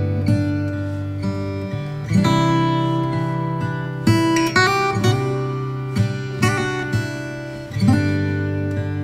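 Background music: strummed acoustic guitar, with a new chord struck every two seconds or so.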